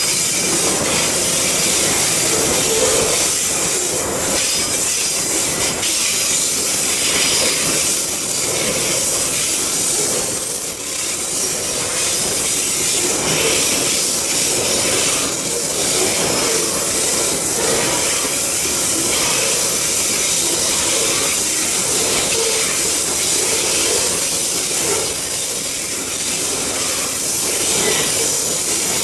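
Loaded open coal wagons of a long Babaranjang coal train rolling past: a steady noise of wheels on rail, with irregular clanks and a few faint high squeals.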